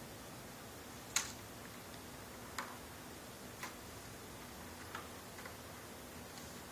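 About five light, sharp clicks and taps at irregular intervals, the first the loudest: small metal laptop screen brackets and screws being handled and set against a replacement LCD panel.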